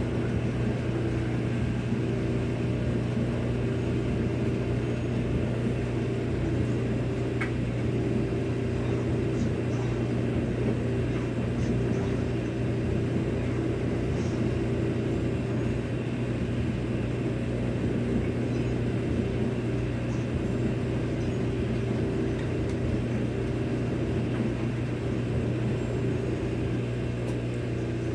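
Samsung front-loading washing machine running its spin cycle, the drum and motor giving a steady hum with no change in pitch, before it ramps up to high spin.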